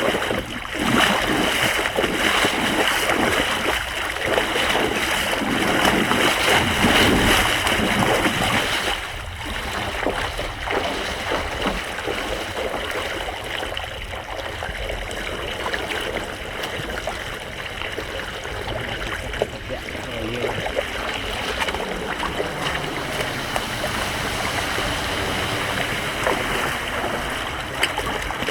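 Floodwater rushing and splashing, louder for the first nine seconds or so, then a steadier flow.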